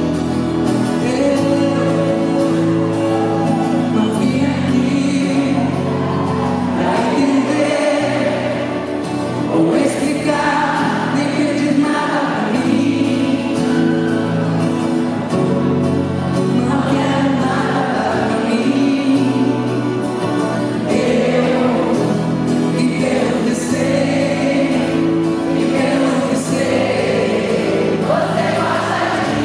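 Live band music with singing, several voices singing together over sustained bass and instrumental notes.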